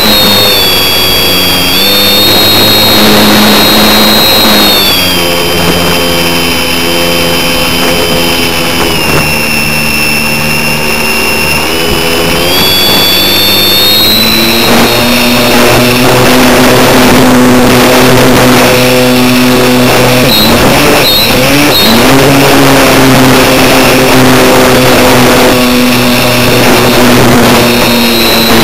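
Onboard sound of an RC model plane in flight: its motor and propeller droning steadily from under the wing, the pitch stepping up and down several times as the throttle changes, over rushing air noise.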